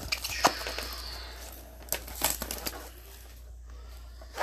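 Handling noise as a cardboard trading-card box is lifted and a foil-wrapped pack is pulled out: a soft crinkle of foil and card for the first second or so, then a few sharp taps and knocks of cardboard.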